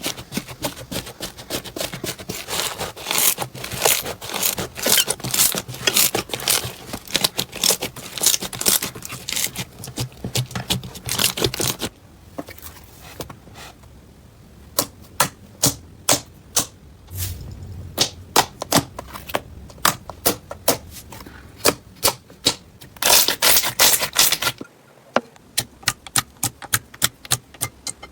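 Slime being squeezed and pressed by hand, giving off dense crackling clicks for about the first twelve seconds, then sparser sharp pops and crackles with a short dense burst of crackling near the end.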